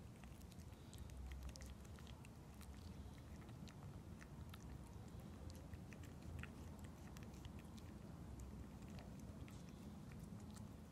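Faint, irregular wet clicks of a cat licking a lickable purée treat from a squeeze tube.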